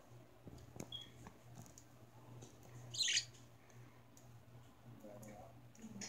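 Caged budgerigars squabbling over food: a short chirp about a second in, then one loud harsh squawk about three seconds in, with faint clicks throughout.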